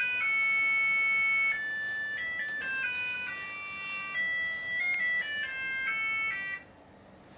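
Electronic alarm melody from a cube alarm clock: a tune of high beeping tones stepping from note to note, stopping about six and a half seconds in.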